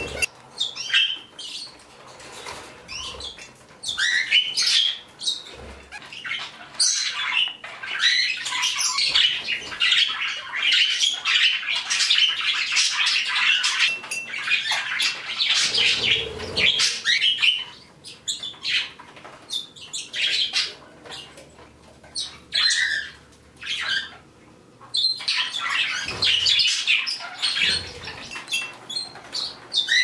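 Small pet parakeets chirping and chattering, many quick high calls overlapping. The chatter is dense through the middle, then breaks into shorter bursts, with sharp clicks now and then.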